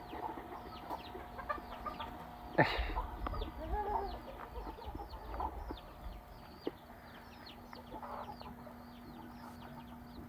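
Chickens clucking, with a quick run of high, falling peeps throughout. A sharp knock about two and a half seconds in is the loudest sound, and a low steady hum runs underneath.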